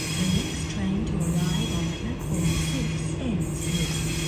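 Music with short sliding notes plays over a steady low hum from a Sydney Trains Waratah (A set) electric train at the platform.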